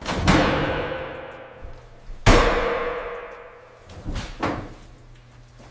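Two loud metallic clangs about two seconds apart, each ringing on and dying away slowly, then two lighter knocks near the end.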